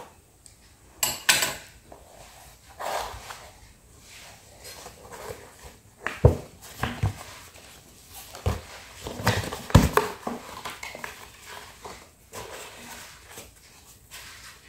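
Scissors snipping through the seal sticker on a cardboard pizza box, then the box being opened and handled: cardboard rustling and scraping, with a few dull knocks against the table.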